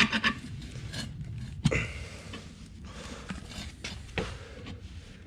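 Workshop handling noise as a small ATV tire is worked onto its rim by hand: rubber scraping and rubbing, with a couple of sharp knocks of metal tools.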